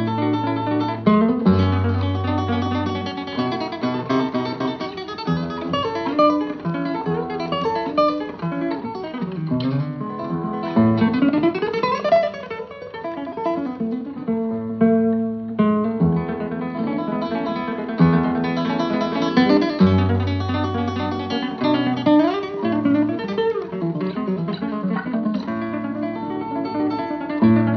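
Background music: acoustic guitar playing fast plucked notes, with a quick rising run about halfway through.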